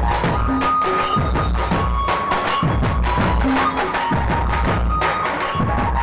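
A Chhattisgarhi dhumal band playing loud folk music: large drums beaten in a steady driving rhythm with deep bass thuds, under a short repeating high melody, amplified through horn loudspeakers.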